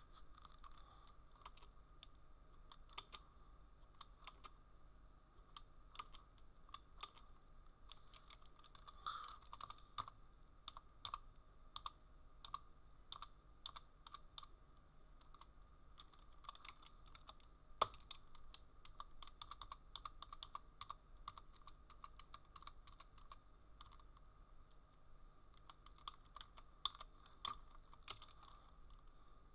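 Faint typing on a computer keyboard: irregular key clicks in runs, with one sharper click a little past the middle, over a steady hum.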